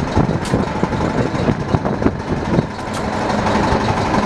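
Fishing boat's engine running steadily under the net haul, with a few sharp clicks and knocks from gear on deck.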